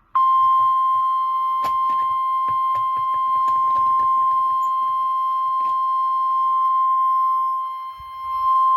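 NOAA Weather Radio warning alarm tone: one long steady beep at about 1050 Hz, with faint clicks over it. It signals that a warning follows, here a severe thunderstorm warning.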